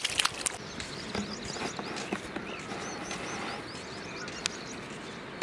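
Shoreline ambience: a few splashes in shallow muddy water at the start, then small birds chirping over and over with short high calls, with a few scattered clicks.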